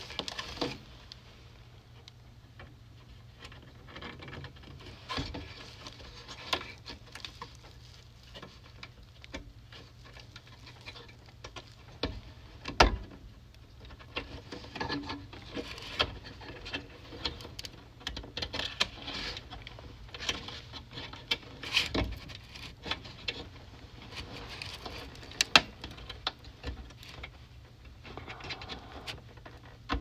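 Scattered clicks and taps of plastic and metal parts as a microwave's replacement control circuit board is fitted and pressed into its plastic panel housing by hand, with a few sharper clicks standing out.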